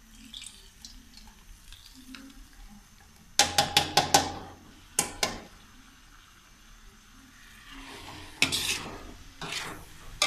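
Metal spatula clinking and scraping against a metal karahi while thick grated-carrot halwa (gajar ka halwa) is stirred, with a faint sizzle from the hot ghee. A quick run of sharp clinks comes about three and a half seconds in, two more come at about five seconds, and a longer stretch of scraping with one loud strike follows near the end.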